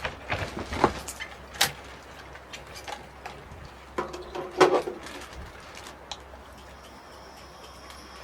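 A handful of sharp knocks and clatters, the loudest bunched together about four to five seconds in, over a faint low hum that stops near the end.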